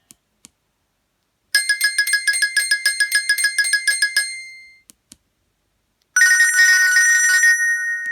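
Nokia Asha 302 ringtones played one after another. The first is a fast electronic trill of about ten pulses a second lasting about three seconds, then fading. After a pause, a second warbling electronic tone starts near the end, and short faint clicks fall in the gaps between them.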